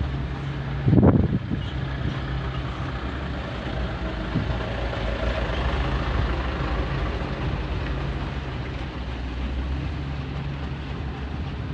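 Diesel engine of heavy construction machinery running steadily with a low hum, and one short, louder surge about a second in.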